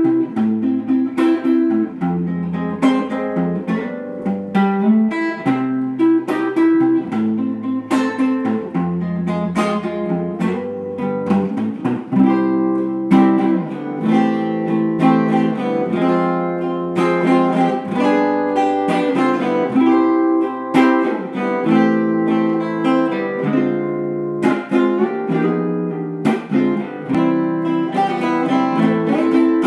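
Background music played on acoustic guitar: a quick run of plucked notes.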